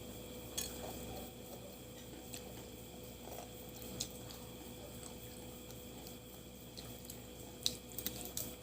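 Quiet eating at the table: a few faint, scattered clicks and small wet mouth sounds of chewing crab and cucumber, with a cluster of clicks near the end. A steady faint hum runs underneath.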